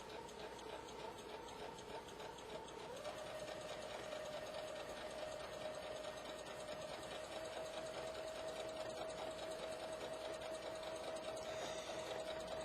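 Home sewing machine with a twin needle stitching a hem: the motor whine steps up to a faster speed about three seconds in, then runs steady and slows right at the end, over the fast ticking of the needle strokes.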